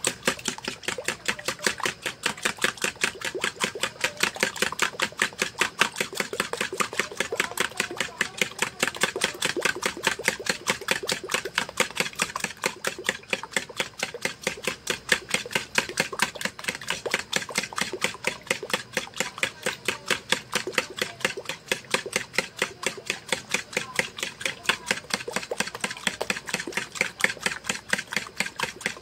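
A metal spoon beating liquid briskly in a plastic basin: a fast, regular clicking of the spoon against the bowl, about four strokes a second, with the liquid sloshing.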